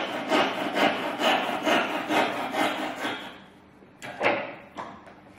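Tenon saw cutting across a small block of wood held in a vise, steady back-and-forth strokes about two a second, finishing about three seconds in. A sharp knock follows about a second later, with a smaller one just after.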